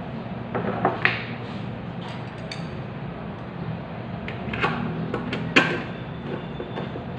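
A few sharp knocks and clicks of tools and small parts being handled, the loudest about five and a half seconds in, over a steady low hum.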